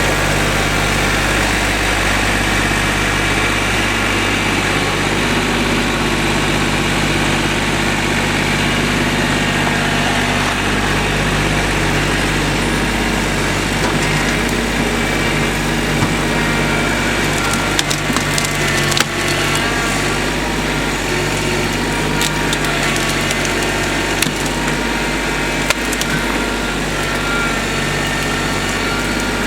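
An engine running steadily, with a scatter of sharp wood cracks and knocks in the second half.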